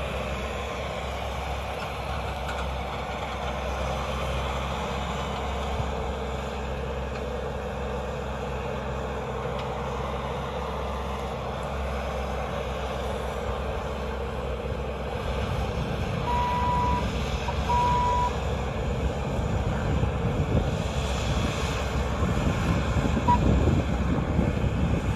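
Bobcat T590 compact track loader's diesel engine running steadily as it works, growing louder and rougher a bit past halfway. Its backup alarm gives two beeps about a second and a half apart around then, with one short blip later.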